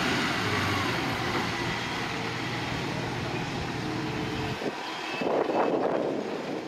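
A large engine running steadily with a low hum, which cuts off suddenly about four and a half seconds in; gusty rushing noise follows.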